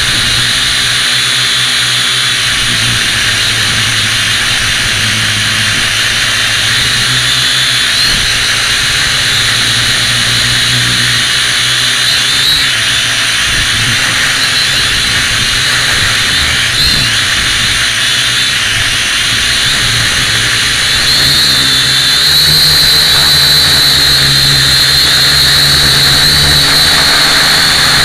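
Syma X1 quadcopter's four small brushed motors and propellers whining steadily, heard loud and close from the camera mounted on the craft. About 21 seconds in the whine gets louder and a little higher as the quad climbs.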